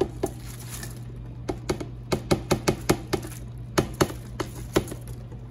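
Chopped raw cabbage being dropped and packed into a slow cooker: a couple of sharp clicks at the start, then a quick irregular run of about a dozen more through the middle.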